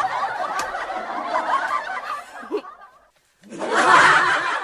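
People laughing. The laughter fades out about three seconds in, breaks off briefly, and starts again loudly half a second later.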